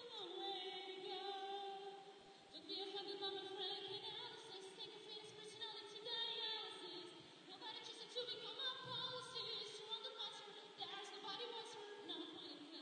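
A woman singing sustained notes with vibrato, in phrases broken by short pauses.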